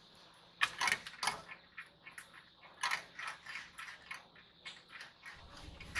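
Marbles dropped into a plastic building-block marble run, clicking and rattling irregularly as they roll down the plastic track pieces and around the spiral funnel, in several short runs.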